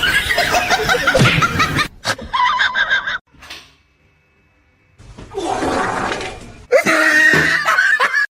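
People laughing, over several short clips cut together, with a brief near-silent gap about halfway.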